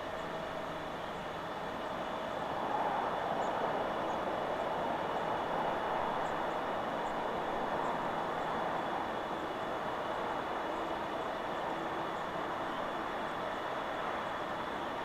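Wind blowing through forest trees: a steady rushing that swells and eases in gusts.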